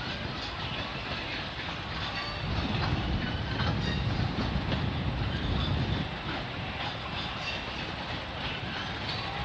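Freight cars of a CN mixed freight rolling past, wheels clattering over the rail joints with faint high wheel squeals; the rumble grows louder for a few seconds in the middle.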